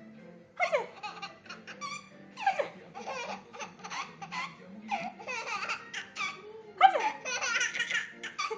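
A woman's sneezes about every two seconds, each answered by a baby's bursts of laughter.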